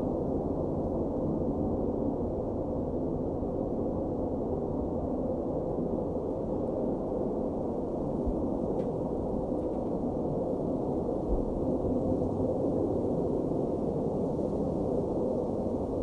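A steady, low, muffled rumble of noise with nothing standing out of it.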